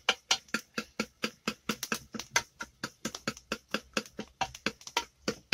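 A kitchen knife chopping in quick, even strokes, about five or six sharp knocks a second.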